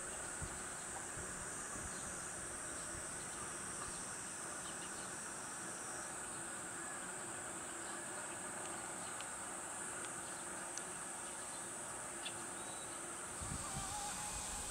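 Steady high-pitched chorus of summer insects, an unbroken buzzing trill; one of two overlapping insect songs drops out about six seconds in.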